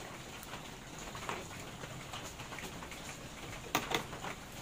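Rain falling steadily, an even hiss with many small ticks, with two sharp clicks close together near the end.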